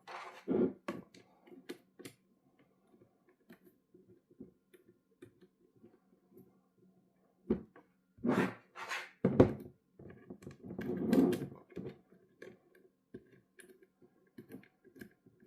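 Light clicks, taps and knocks of aluminium alloy posts and acrylic shelves being handled and fastened together as a small desktop rack is assembled, with a cluster of louder knocks in the middle.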